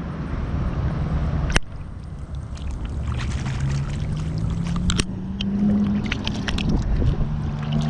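A low engine hum that rises in pitch and then settles back, over a steady low rumble. A sharp click comes about one and a half seconds in, and another near five seconds.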